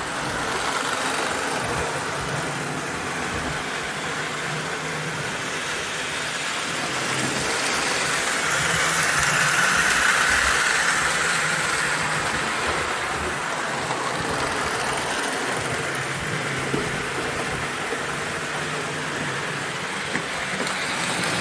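O gauge toy train locomotive running on the track with a steady buzzing rattle, growing louder about halfway through and then easing off.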